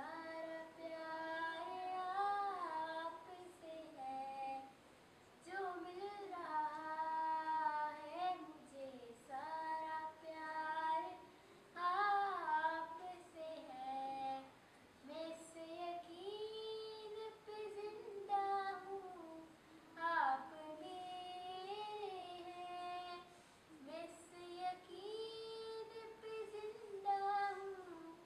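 A girl singing a naat solo without accompaniment, in long phrases of held and gliding notes with short pauses for breath between them.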